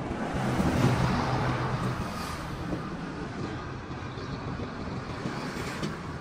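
Road vehicle traffic noise: a steady rumble, louder about a second in.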